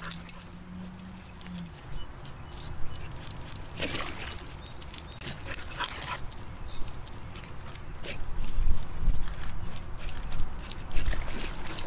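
Light metallic jingling and clicking, irregular and high-pitched, from a soft-coated wheaten terrier's collar tags as the dog walks and trots about on grass.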